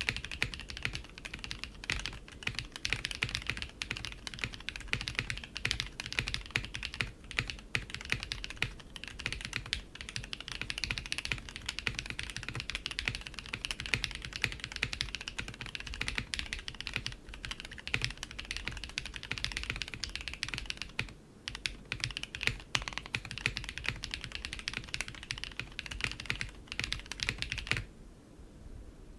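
Continuous typing on a Geonworks Frog TKL mechanical keyboard, a top-mount board, fitted with stock factory-lubed Red Jacket linear switches: a dense run of keystrokes with a brief break about three-quarters of the way through, stopping near the end.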